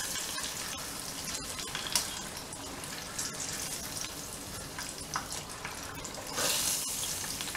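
Battered buffalo fish pieces deep-frying in a pot of hot oil, the oil bubbling and sizzling steadily with a louder surge of sizzle near the end. Metal tongs click a few times as they move the pieces.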